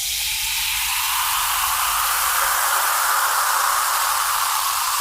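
A steady hiss that swells slightly in the middle and eases a little near the end.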